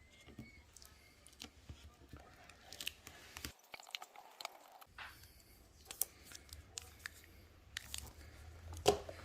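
Faint clicks, scrapes and small tearing sounds of hand work in an opened iPhone 8 Plus's battery bay as leftover battery adhesive is cleaned out, with a short gap about halfway through.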